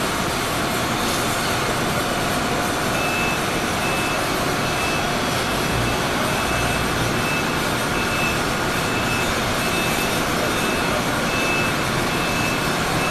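A vehicle's reversing alarm beeping, one high tone repeating at an even pace from about three seconds in, over a steady rushing background noise.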